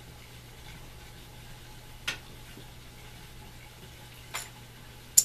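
Three sharp clicks of casino chips and dice being handled, about two seconds apart, the last one the loudest, over a faint steady hum.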